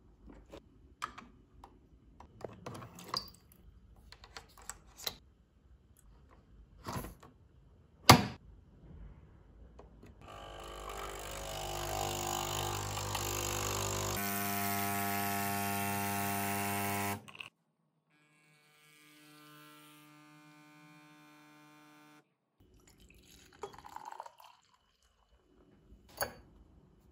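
Nespresso capsule coffee machine: small handling clicks and one sharp click as the capsule is loaded and the head closed, then its pump buzzes loudly and steadily for about seven seconds while espresso runs into the cup, dropping to a fainter hum before it stops. Near the end, milk is poured into a glass.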